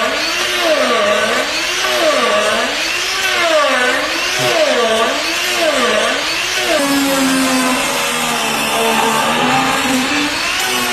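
Angle grinder fitted with a carbide-insert milling disc, cutting wood. The motor's whine dips and rises about once a second as the disc bites in and eases off. From about two-thirds of the way through, the pitch holds lower and steadier, over a noisy cutting sound.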